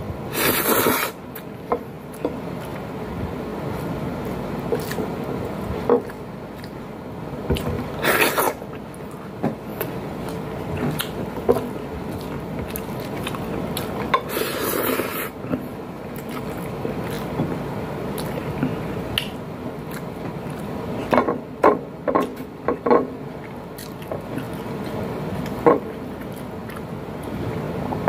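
Close-up wet chewing of a hand-fed mouthful of pancit canton noodles and rice, with three brief loud slurps (near the start, about 8 seconds in and about 15 seconds in) over a steady background hiss. Several short sharp clicks come in the last few seconds.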